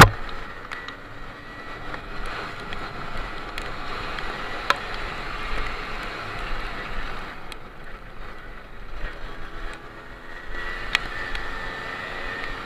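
Simson S51 moped's two-stroke single-cylinder engine running under way on a bumpy dirt track, mixed with wind noise on the helmet microphone. Scattered clicks and knocks run through it, with one loud knock at the very start.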